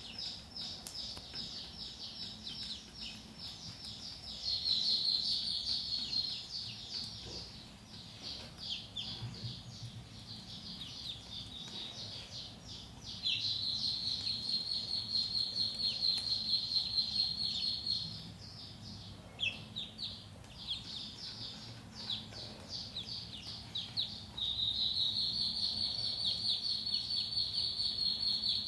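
A group of ducklings peeping continuously: many rapid, high calls overlapping, swelling louder for a few seconds at a time and again for the last few seconds.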